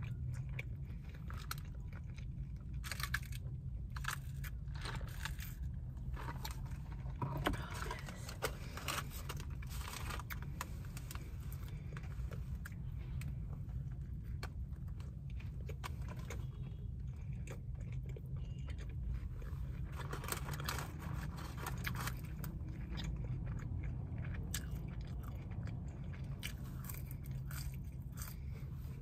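A person biting into and chewing a McDonald's burger close to the microphone, with many short wet clicks and smacks of the mouth. A steady low hum runs underneath.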